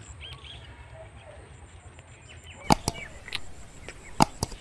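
Low steady outdoor rumble with faint bird chirps, broken by two sharp knocks about a second and a half apart.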